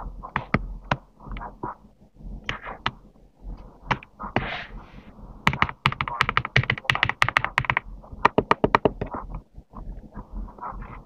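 Typing on a GMK67 mechanical keyboard, keystrokes clacking. Scattered irregular keypresses give way to a fast run of strokes a little past the middle, then the pace slows again.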